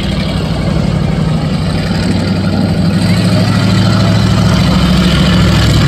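A car engine running steadily at low speed, gradually growing louder.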